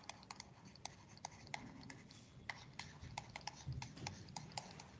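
Faint, irregular clicks and light scratches of a stylus writing by hand on a pen tablet.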